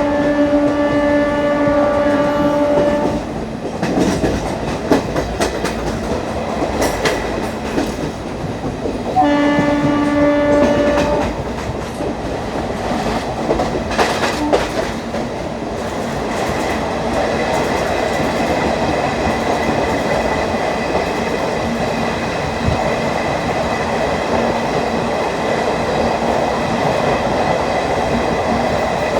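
WCAM2 electric locomotive horn sounding twice at a steady pitch, a blast of about three seconds at the start and a two-second blast about nine seconds in, heard from an ICF coach behind it. Between the blasts the coach wheels clack over rail joints, and from about sixteen seconds the train runs on with a steady rumble of wheels on track.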